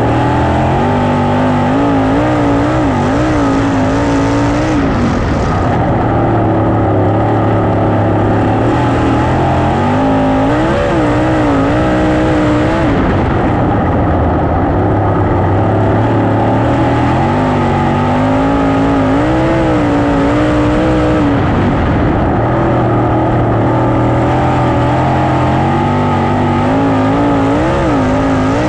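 Sprint car's V8 engine at racing speed, heard from on board, its note rising and falling every few seconds as the throttle goes on and off.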